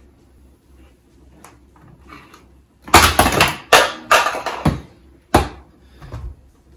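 Spice bottles and jars tumbling out of an upper kitchen cabinet: a quick run of clattering knocks starting about three seconds in and lasting about two seconds, then one last knock a little later.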